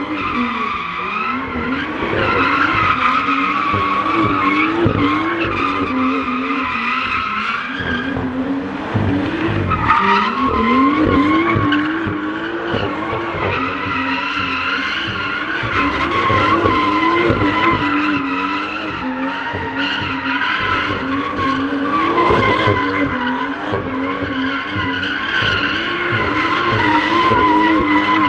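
BMW M2 coupe's turbocharged straight-six held at high revs as the car spins donuts, its rear tyres squealing continuously through the slide. The engine note and squeal waver throughout, dip briefly about eight seconds in, and climb again about ten seconds in.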